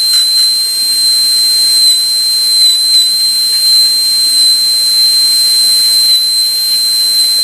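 Dental high-speed air-turbine handpiece with a 330 bur running, cutting a Class I cavity: a high, steady whine over a hiss of air. Its pitch dips briefly a few times as the bur bears on the tooth.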